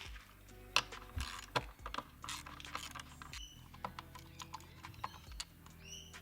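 Irregular light metallic clicks and taps of an Allen key and bolts as licence-plate bolts are fitted, with a couple of bird chirps.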